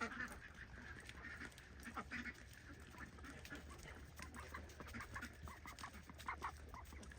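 Domestic ducks quacking faintly and intermittently, short scattered calls over a low background hum.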